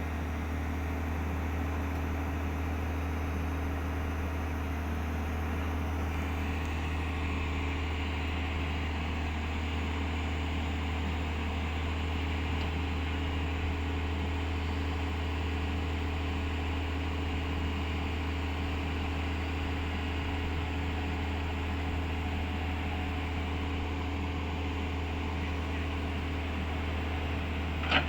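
Tata Hitachi construction machine's diesel engine running at a steady, even speed, with a constant low hum and no distinct knocks or clanks.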